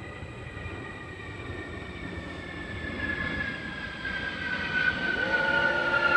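An airplane passing overhead: a steady rumble growing louder, with high whining tones sliding slowly down in pitch. About five seconds in, an English golden retriever starts one long howl, set off by the airplane.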